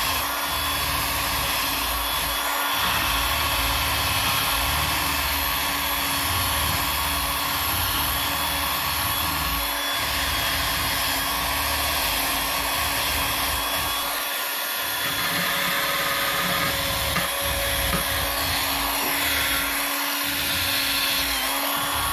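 Cheap motor-driven cloth buffing wheel running steadily while it polishes a buffalo-horn bow nock with compound, the motor's hum mixed with the cloth rubbing on the horn.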